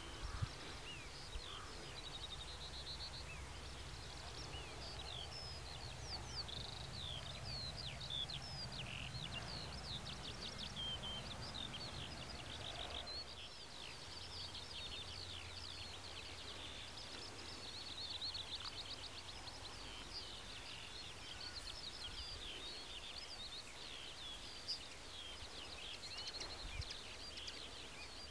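Songbirds singing in a continuous run of quick chirps and trills, over a low steady rumble.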